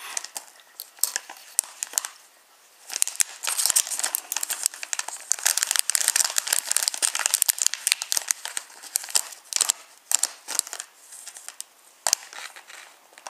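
Thin clear plastic bag crinkling and crackling as toy train track pieces are handled in it, busiest from about three to eight seconds in, with scattered crackles before and after.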